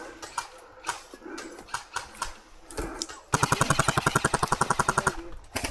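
Airsoft rifle firing one rapid full-auto burst of about two seconds, a fast even rattle of shots starting a little past the middle, after a few scattered light clicks.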